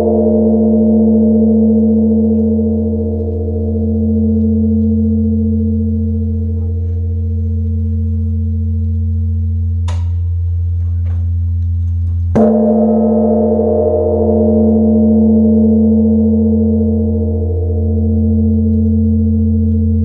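Large Korean bronze Buddhist temple bell (beomjong) ringing on after a strike, a deep sustained hum that pulses slowly as it decays. It is struck again about twelve seconds in, and the ringing swells afresh.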